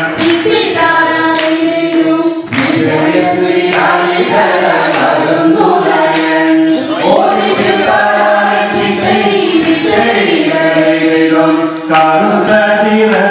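A group singing a Malayalam vanchipattu boat song in loud chorus, with a few sharp knocks along the way.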